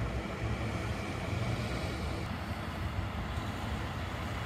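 Steady low rumble of buses and road traffic.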